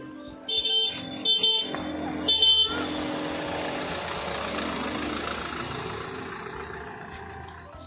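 Car horn honked three times in quick succession, short blasts. The car then runs on as it pulls up close, its sound fading off near the end.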